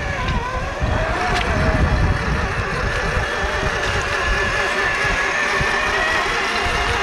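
Electric motors and gear trains of RC scale off-road trucks whining under load as they drive through a mud puddle, one towing the other. The whine's pitch drifts slowly up and down with the throttle.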